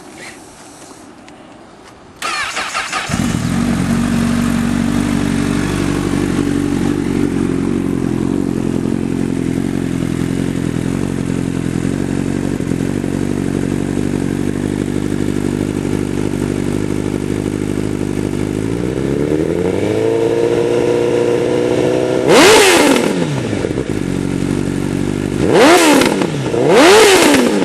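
Honda CBR1000 sportbike's inline-four engine starting about two seconds in and settling into a steady idle. Near the end the idle rises, then the throttle is blipped three times, each rev climbing and dropping quickly.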